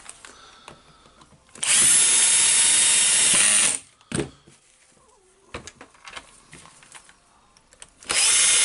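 Cordless drill-driver running steadily in two runs, driving metal screws into the top of the handle. The first run lasts about two seconds, starting a second and a half in; the second starts near the end. Between the runs there are only faint clicks of handling.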